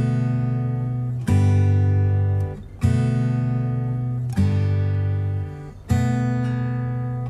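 Background music: guitar chords struck about every second and a half, each left to ring and fade before the next.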